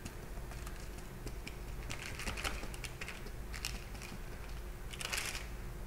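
Light tapping of a hand patting down sesame-topped bread rolls of soft dough to press the seeds in, in a few short clusters of small taps.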